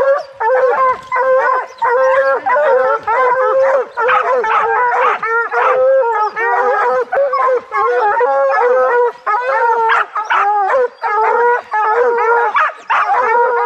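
A pack of hounds baying at the base of a tree, many voices overlapping with no pause: the tree bark of hounds that have a bear treed.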